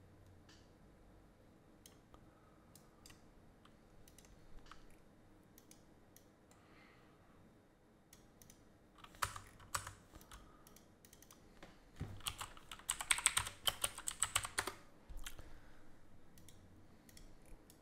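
Scattered single mouse clicks, then typing on a computer keyboard: a short burst of keystrokes about nine seconds in and a fast run of keystrokes lasting about three seconds shortly after.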